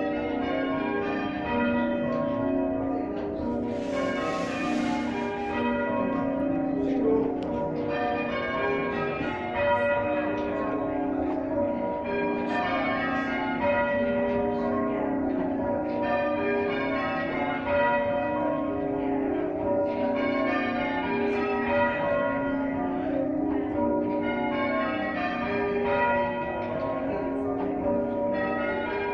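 Church bells rung by bell ringers: several bells of different pitch struck one after another in a steady, unbroken sequence, each stroke ringing on under the next.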